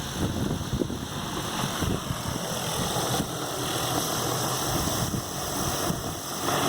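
Small wind turbine with iSta Breeze blades freewheeling fast, its washing-machine-motor generator unloaded so the rotor overspins: a steady whoosh of the blades with a hum, mixed with wind buffeting the microphone.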